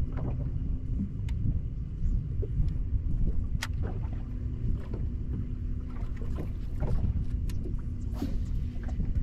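Lake water lapping and slapping against the hull of a bass boat in a light chop, with a steady low hum underneath and scattered small clicks and knocks.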